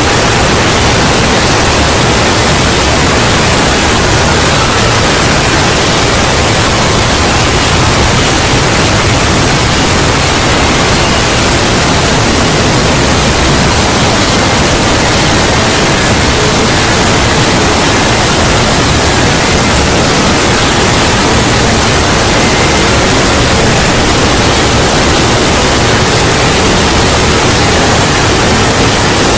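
Loud, steady wall of noise like static or hiss, spread evenly from deep rumble to high hiss, with no pauses or changes.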